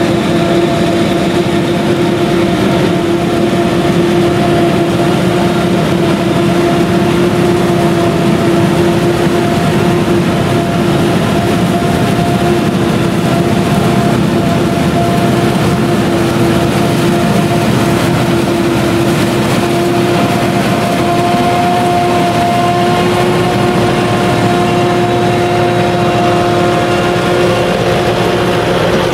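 Claas Jaguar 970 forage harvester with V8 engine running under full load while chopping sorghum, a steady loud drone with a constant whining tone, mixed with a Deutz-Fahr tractor running alongside pulling the forage trailer.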